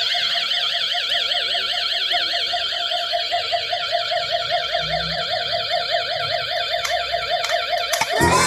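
Battery-powered toy pistol's electronic sound chip playing a fast warbling siren-like tone, about five or six warbles a second. It cuts off abruptly near the end as a different, noisier sound starts.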